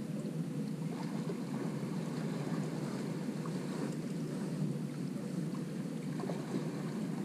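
Steady low rushing noise of wind and fast river current around an anchored boat, with a few faint ticks.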